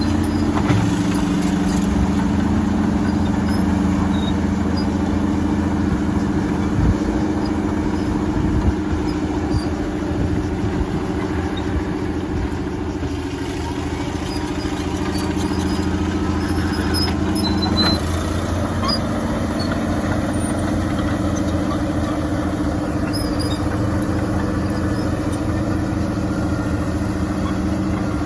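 Diesel engine of a Fiat-Allis FL10C crawler loader running steadily, with a few short knocks. Its note softens for a few seconds mid-way, then picks up again.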